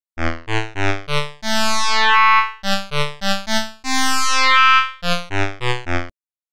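Software synthesizer playing its sax-like 'Saxy Voice' preset, a tone built from nested trigonometric and hyperbolic functions: a run of short notes at changing pitches, broken by two longer held notes.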